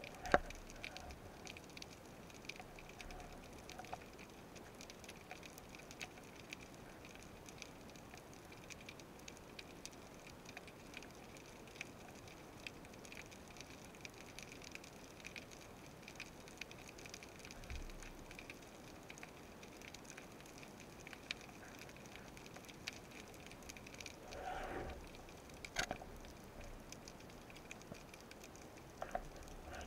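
Underwater reef ambience heard through a speargun-mounted action camera: a steady faint crackle of many tiny clicks, typical of snapping shrimp on a rocky seabed. A sharp knock comes right at the start and a brief muffled swell near the end.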